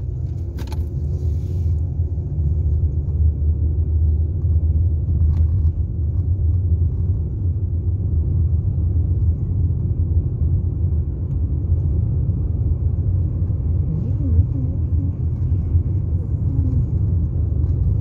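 Steady low rumble of a car's road and engine noise, heard from inside the cabin while driving at road speed.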